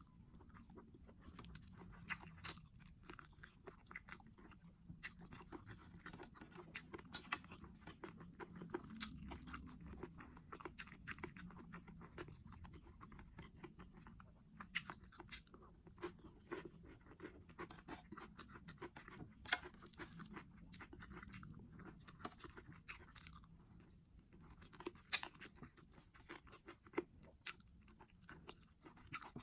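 Close-miked eating: a person chewing food, with many irregular small crunches and wet mouth clicks.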